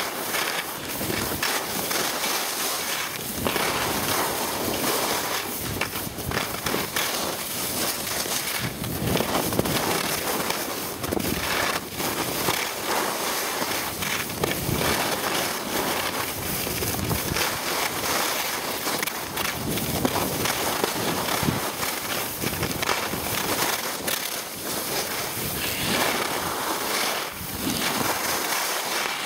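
Wind rushing over the microphone of a skier's camera on a downhill run, with skis scraping over packed snow; a loud, even rush that keeps rising and falling.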